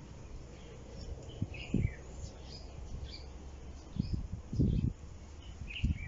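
Small birds chirping in short calls in the background, with a few low thumps on the microphone.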